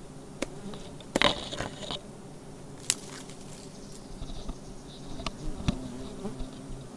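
Giant honey bees (Apis dorsata) buzzing around their exposed comb, a steady low hum, with several sharp clicks and rustles of handling, the loudest a little over a second in.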